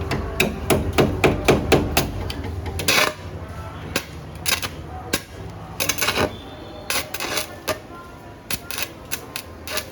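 Hammer blows on steel: a quick run of strikes, several a second, over a low hum for about three seconds, then scattered single knocks.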